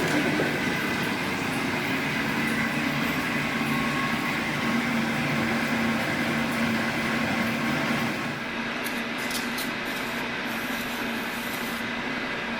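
G&E metal shaper running, its ram stroking back and forth while a shear tool takes a finishing cut across the back of an aluminum block. It gets slightly quieter about eight seconds in.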